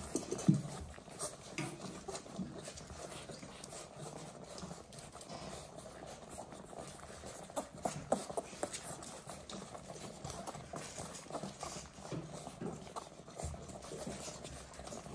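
Dalmatian puppies suckling at their mother's teats: soft, irregular sucking and smacking clicks.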